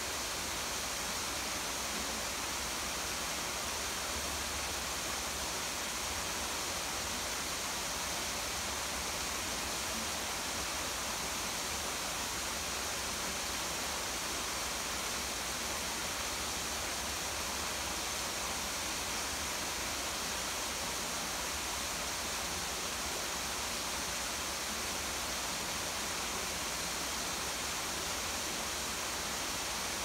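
A small garden waterfall and falling rain, making a steady, even rush of water.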